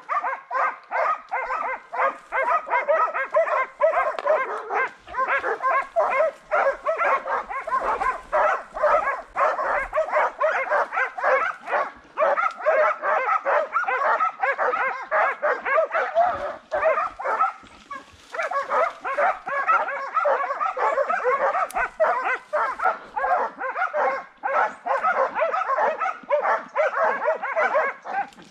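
A pack of hunting dogs barking hard and without a break, many barks overlapping, with one short lull a little past the middle.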